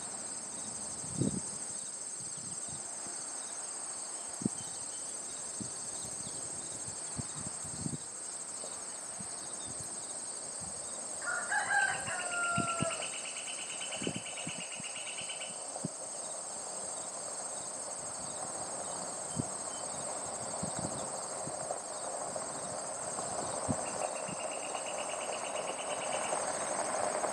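A steady high buzz of summer insects. A rooster crows once about halfway through, a pulsing insect trill comes in twice, and a pickup truck rolling up a gravel driveway grows louder near the end.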